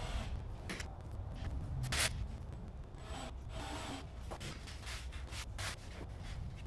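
Irregular scraping and rubbing as screws for the light fixture's mounting clips are driven into the ceiling by hand with a screwdriver, with one louder scrape about two seconds in, over a low steady hum.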